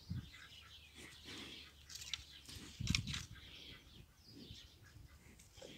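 Faint small birds chirping in the background, with a couple of soft low thumps, the clearest about three seconds in.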